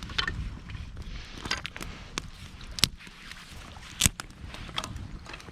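Small campfire crackling, with sharp irregular pops at uneven intervals over a low rumble of wind on the microphone.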